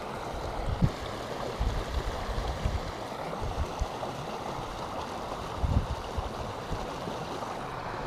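Steady rush of a small creek's flowing water, with a few low thumps.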